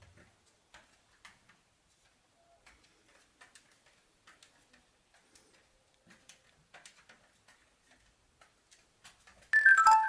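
Faint, irregular light clicks and taps of a small dog shifting about and pawing inside a wire crate. Near the end a loud, bright chime of a few repeated bell-like notes cuts in.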